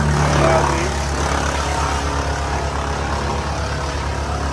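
Engine of heavy machinery running steadily, a low pulsing drone.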